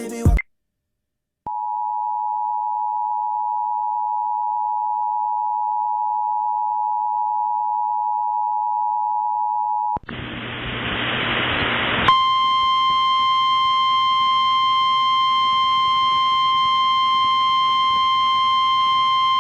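Emergency Alert System two-tone attention signal, a steady dual-pitched electronic tone held for about eight seconds after a short electronic burst right at the start. It cuts to about two seconds of static hiss, then the single steady 1050 Hz weather-radio warning alarm tone, which marks the tornado warning that follows.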